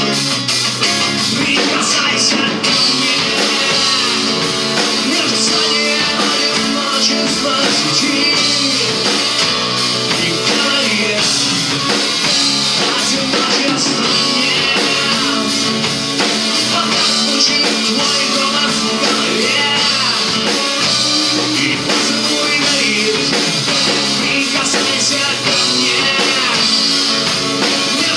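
Live rock band playing a song: electric guitar, bass guitar and drum kit, with a strummed acoustic-electric guitar, and a voice singing at times.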